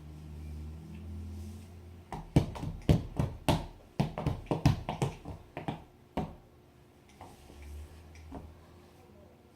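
Wood fire crackling in a fireplace: a cluster of sharp, irregular pops and snaps between about two and six seconds in, after a low hum at the start.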